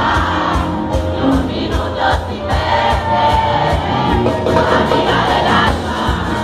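Live band playing a song with a sung lead vocal over a steady drum beat, about two strokes a second, with a crowd singing along.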